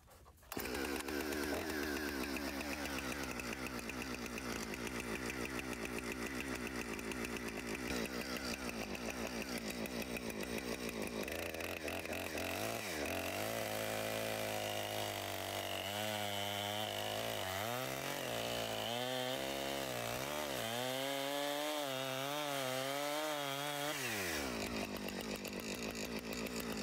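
Two-stroke Husqvarna chainsaw, its engine still cold, idling and then revving up to cut through a log, its pitch dipping and recovering under load before dropping back to idle near the end. The freshly sharpened chain sinks through without hanging up.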